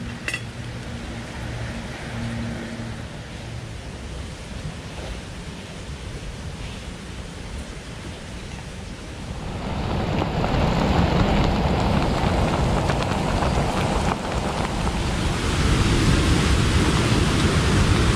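Canister gas stove (MSR Micro Rocket) burning under a pot: a steady rushing roar, which becomes much louder about halfway through.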